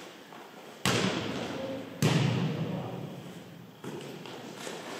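A volleyball being hit by players during a rally: two sharp smacks about a second apart, then a softer one nearly two seconds later, each ringing on in the gymnasium's echo.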